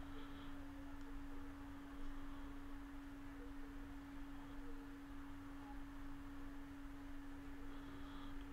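A faint, steady hum: one pure tone held unchanged, over low background noise.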